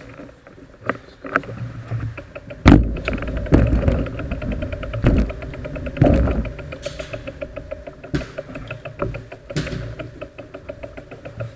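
Bicycle freewheel hub ticking rapidly and evenly as the bike rolls without pedalling, with a few heavy thumps, the loudest about a quarter of the way in.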